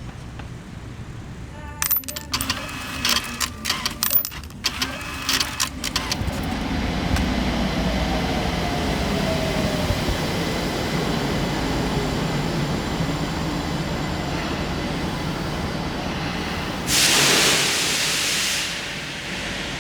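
Some sharp clattering clicks, then a vehicle running steadily with a slowly falling whine, and a short loud hiss near the end.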